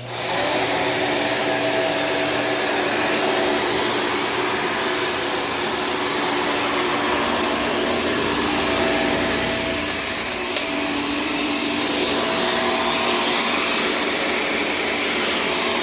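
Shark Stratos upright vacuum cleaner switched on in its hard-floor setting, its motor spinning up within about half a second and then running steadily with a high whine.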